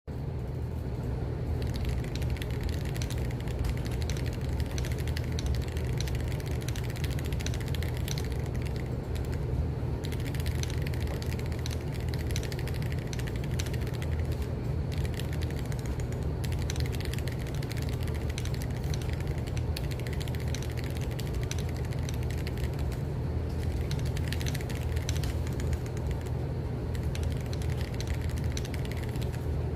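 Continuous typing on an Aqua67 custom mechanical keyboard: a dense, steady stream of keystrokes with a thocky 'dogak-dogak' sound.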